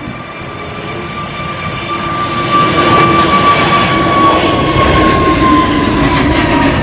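Twin-engine jet airliner taking off: loud engine roar with a steady whine, growing louder about two seconds in as the plane climbs past, the whine dropping slightly in pitch near the end.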